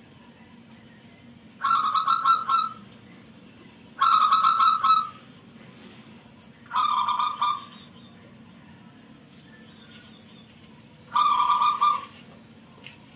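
Zebra dove (perkutut) singing its rapid, stuttering cooing phrase four times, a few seconds apart. It is a loud, high-pitched local perkutut song.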